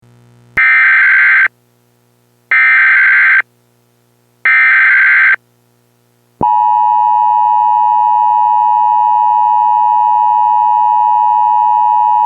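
Emergency Alert System broadcast tones. First come three SAME header data bursts, each about a second long and about two seconds apart. Then, from about six seconds in, the steady two-tone EAS attention signal sounds, the signal that a spoken emergency message is about to follow.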